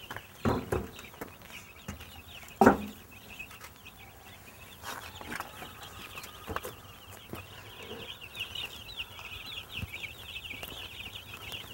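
A flock of week-old Cornish meat chicks peeping continuously: many quick, high chirps that each fall in pitch, getting busier after about six seconds. Two louder knocks come in the first three seconds as a metal chick waterer is handled into the coop.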